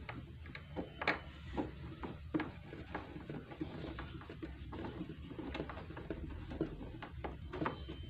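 Irregular light clicks and knocks of hands working at a washing machine's plastic base, a few sharper knocks among them.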